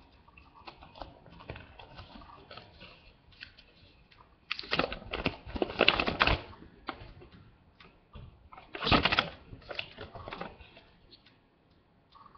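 Paper instruction leaflet rustling and crinkling as it is unfolded and handled, with two louder stretches of crinkling, one around the middle and a shorter one about three-quarters through.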